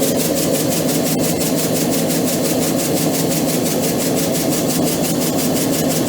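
Rebuilt ЄПКУ-1.7 piston air compressor running steadily on its test run after repair of knocking cylinders and oil throw, with a fast, even pulsing beat.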